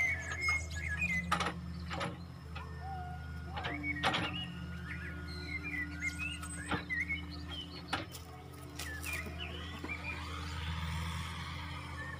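Excavator diesel engine running steadily, with several sharp metallic clanks and frequent high chirps over it.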